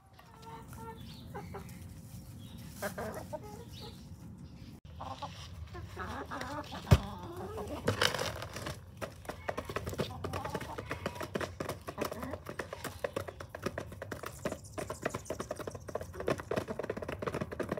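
Backyard hens clucking, with a single sharp knock about seven seconds in. From then on comes a rapid patter of many beaks pecking dry white rice from a plastic tub.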